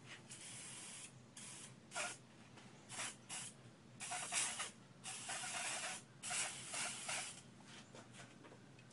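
Handheld propellant spray bottle spraying DuraCoat finish in a series of hissing bursts. Short squirts come first, then longer passes of about a second each in the middle, then a few faint ones near the end.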